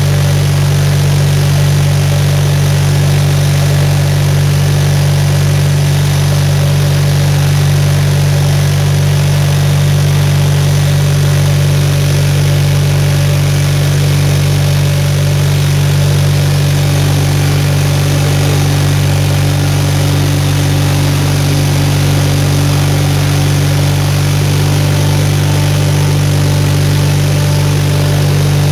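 Engine of a 520-SC Snow Chucker running at a steady, even pitch while the machine is ridden along, heard close to its upright exhaust stack.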